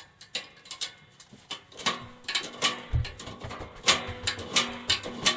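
Picture-frame molding being handled against a cutter's measuring scale: an irregular run of sharp clicks and knocks, denser and louder toward the end, with one dull thump about three seconds in.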